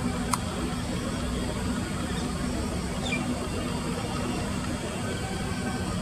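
Steady low rumble of distant motor traffic, with a sharp click just after the start and a faint, brief falling bird chirp about three seconds in.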